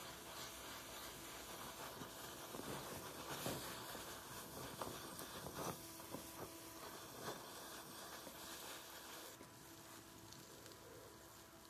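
Oxyacetylene torch flame with a small tip hissing steadily on the fluxed joint during bronze brazing, with scattered small crackles and pops through the middle. The hiss drops lower near the end.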